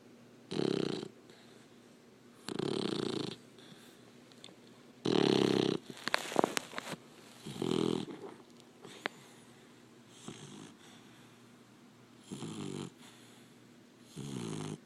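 Labrador puppy snoring while asleep: about seven snores, one every two to two and a half seconds, some fainter than others, with a few sharp clicks around the middle.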